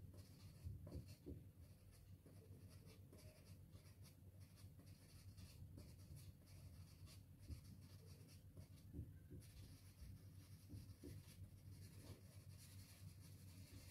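Faint, scratchy rubbing of a chalk-like soft pastel stick on paper, laid down in short, irregular shading strokes.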